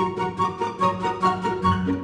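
Background music: a light instrumental tune with evenly paced notes over a bass line.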